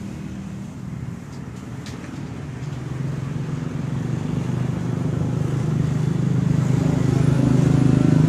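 Road traffic: a motor vehicle's engine hum that grows steadily louder and is loudest near the end.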